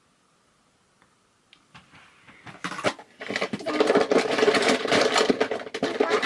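Packaging being handled: a few sharp clicks, then a dense, rapid crackle of crinkling paper or plastic wrapping from about three seconds in that lasts about three seconds and stops just before the end.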